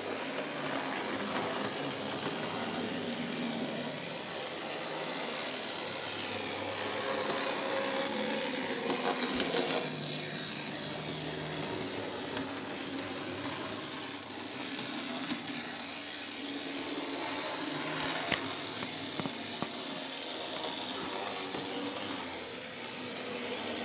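Model tram motor bogie unit running along the track: its small ex-Tenshodo twin-shaft motor with flywheel and worm-and-pinion gearing whirring steadily. Two sharp clicks stand out, one about nine seconds in and one about eighteen seconds in.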